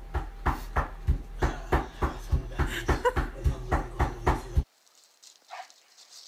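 A dog panting in a quick, even rhythm of about four breaths a second, which cuts off abruptly about two-thirds of the way through, leaving only faint scattered sounds.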